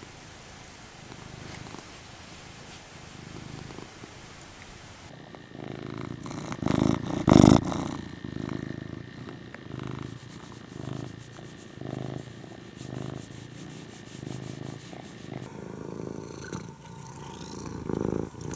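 Domestic cats purring close to the microphone, several cats one after another. Through the middle the purr swells and fades about once a second with each breath, and there is a brief loud bump about seven seconds in.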